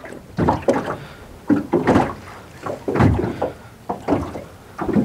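Small waves slapping irregularly against a small metal boat's hull, about one or two knocks a second.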